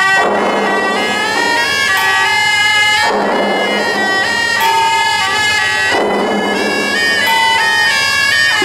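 Suona (Chinese shawm) band playing a loud, reedy processional melody, with a percussion crash about every three seconds.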